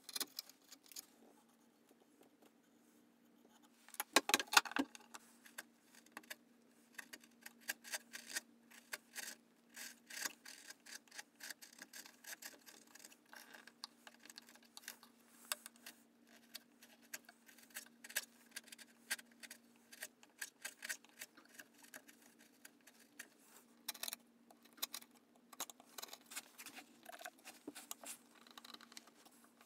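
Hand chisel paring a birch saw handle: many short scraping, clicking cuts as shavings come off, with a louder cluster about four seconds in. A faint steady low hum sits underneath.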